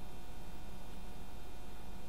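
Room tone: a steady low hiss with a faint electrical hum, with no distinct sound.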